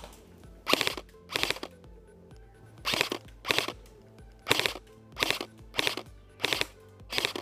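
Airsoft rifle firing nine short full-auto bursts in quick succession, each a fast rattle of a few shots, over background electronic music.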